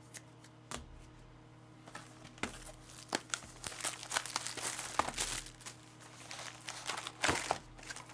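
Plastic card packaging being crinkled and torn open, starting about two seconds in as a dense run of crackles and rustles that is loudest near the end.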